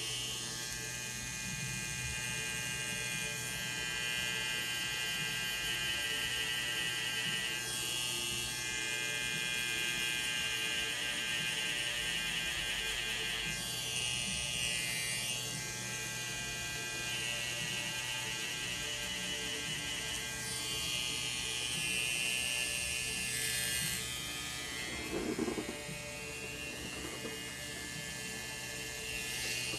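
A tattoo machine buzzing steadily as it works on skin, getting brighter and easing off in stretches of a few seconds. A short, louder sound comes about 25 seconds in.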